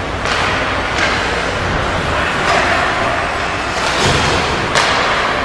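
Ice hockey play in an echoing arena: sharp knocks and scrapes of skates, sticks and puck on the ice and boards, about five of them, the loudest close by near the end, over a steady rink hum.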